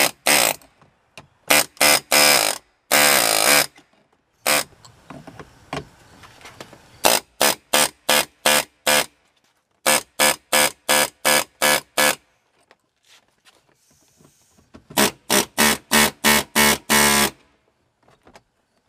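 Pneumatic air hammer (air chisel) firing in short bursts, in runs of several with pauses between. It is driven against rusted front seat bolts whose heads have rounded off, to blast the heads off.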